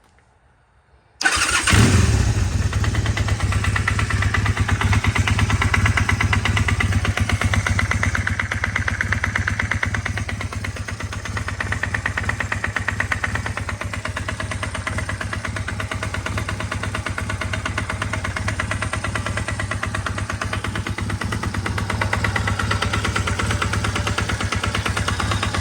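Honda Rebel 450's parallel-twin engine starting about a second in, then idling with a repetitive knock that a valve adjustment has not cured; the owner suspects the bottom end or the cylinder head.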